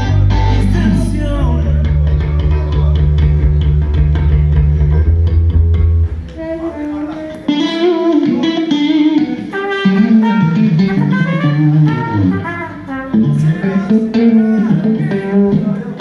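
A live band playing: electric guitar over held bass guitar notes. About six seconds in the bass drops out, leaving a guitar melody line.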